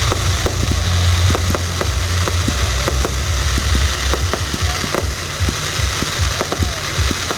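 Fireworks cakes firing: a dense run of sharp pops and crackles over a low rumble.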